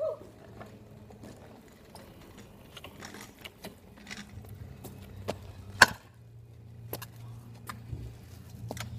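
Stunt scooter wheels rolling over wet tarmac with a low, steady hum, broken by clacks and knocks of the scooter deck and bars; the loudest is a single sharp crack just under six seconds in.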